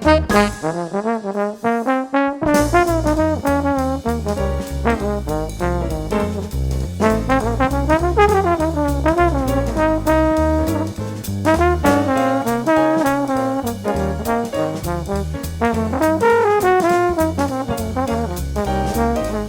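Brass-led jazz background music, trombone and trumpet lines over a steady drum beat.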